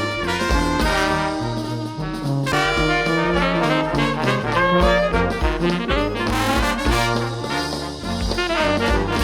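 Background music: upbeat brass-led swing or jazz, with horns over a walking bass and steady beat.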